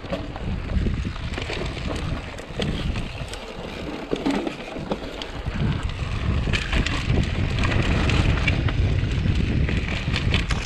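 Mountain bike riding down a dirt and rocky singletrack: a steady rush of wind buffeting the camera microphone over tyre noise, with many short clicks and rattles from the bike over roots and stones, getting louder about halfway through.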